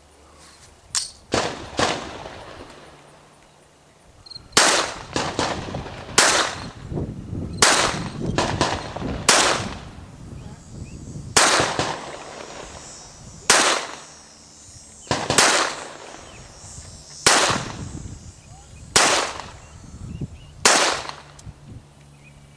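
Pistol shots fired one at a time, about fifteen in all, roughly one every one to two seconds, each with a short echoing tail.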